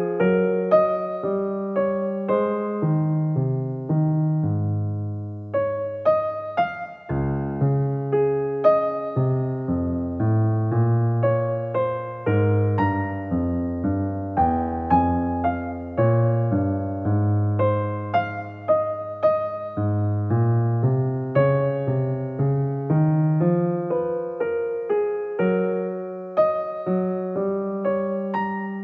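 Background piano music: a gentle melody over chords, struck notes ringing and dying away.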